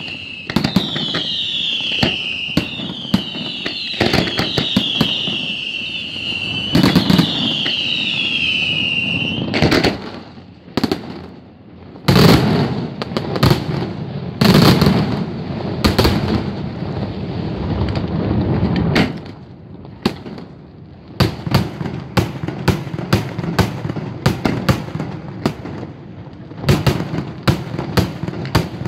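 Daytime fireworks display. For the first nine seconds or so, shrill whistles fall in pitch one after another amid bangs. Then comes a dense barrage of shell explosions, and near the end a rapid run of sharp cracks, several a second.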